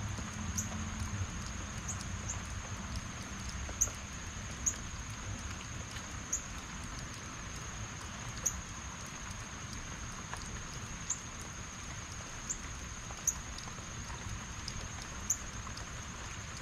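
Heavy rain falling steadily, with a constant high thin tone over it and short sharp high chirps every second or so.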